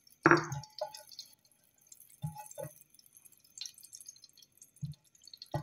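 A few short, soft knocks of a silicone spatula against a nonstick frying pan as melted ghee is spread around; the first, a quarter second in, is the loudest.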